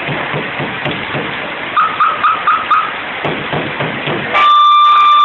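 Steady rush of floodwater, with five short alarm beeps about two seconds in, then a loud, steady alarm tone from about four and a half seconds in.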